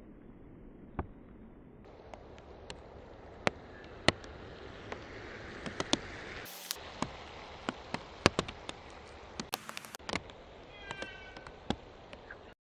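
Wild backyard birds at a feeder: scattered sharp ticks and taps at an uneven pace, with a quick run of short falling chirps about eleven seconds in.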